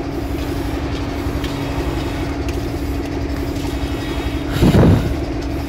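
Sawmill band saw running with a steady hum as boards are fed along the blade and ripped into strips. A short, louder burst comes about four and a half seconds in.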